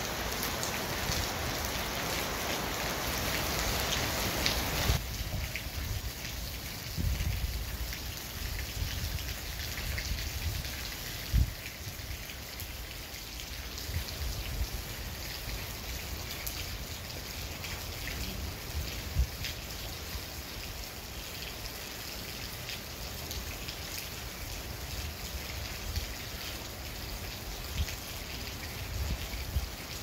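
Steady rain falling during a night thunderstorm, with scattered drops ticking sharply on a nearby surface. The rain is louder for the first five seconds, then drops off suddenly to a lighter patter.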